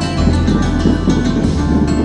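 Background music in a flamenco style: plucked guitar over sustained bass notes that change every second or so.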